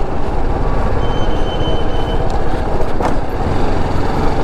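Motorcycle engine running at low speed, heard from a helmet-mounted mic. A thin high beep sounds for about a second starting a second in, and a sharp click comes about three seconds in.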